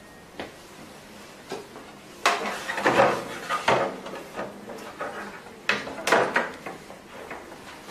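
Machine parts clicking and knocking together as a beauty machine's handpiece shell is handled and fitted in place, in a run of sharp clicks and rattles that bunch up in the middle and again about six seconds in.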